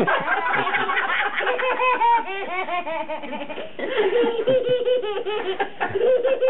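A young child laughing: high-pitched giggles in quick repeated bursts, in several runs with short breaks between them.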